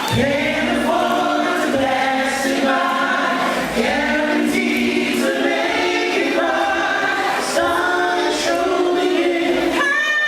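Soul vocal group singing in close harmony, several voices holding and sliding between notes together.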